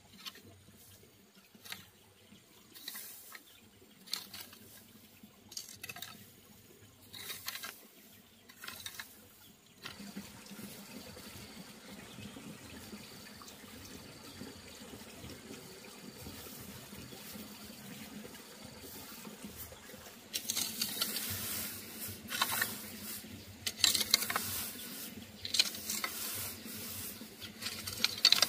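Dry grass mulch rustling and scraping as it is raked and spread over bare soil, in a series of separate strokes. There is a quieter stretch in the middle, and the rustling comes back louder and busier near the end.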